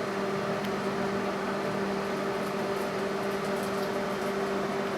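Panasonic inverter microwave oven running with a steady hum and a low, even tone, its fan going. It starts because the newly replaced door latch now engages.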